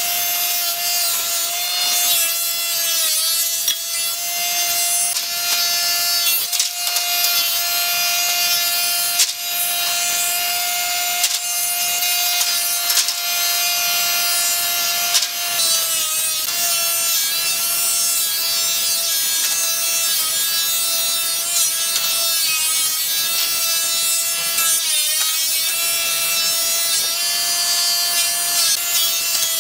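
Combination jointer-thickness planer running with a steady high whine while boards are fed through the thicknesser, the cutterhead shaving them with a dense hiss. The tone wavers and dips briefly several times as boards go through.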